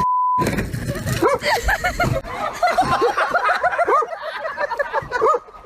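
A short beep tone, like a censor bleep, then a dog yipping and whining in rapid, short, high-pitched cries, several a second.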